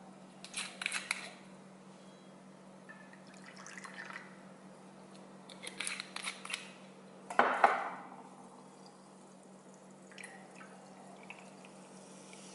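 Peach soju poured into a small glass measuring cup, with clinks of glass and a few knocks of bottle or glass on the board; the loudest knock comes about seven and a half seconds in. Soda water starts pouring into the cup near the end.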